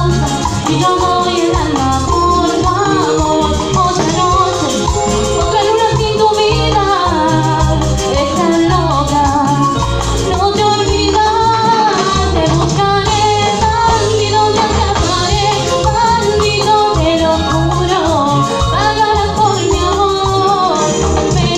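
Live cumbia band playing loudly through a PA: a woman sings lead over electric guitar, keyboard and drums, with a steady shaken-rattle percussion rhythm.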